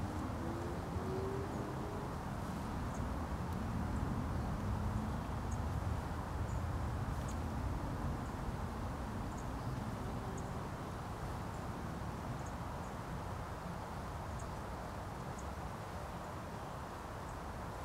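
Steady outdoor background noise, mostly low and even, with faint short high ticks scattered irregularly through it.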